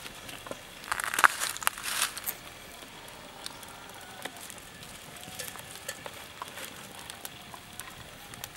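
Food frying in a small pan over an open wood fire, with crackling. A burst of loud crackles and rustling about a second in, then a faint steady sizzle with scattered small pops.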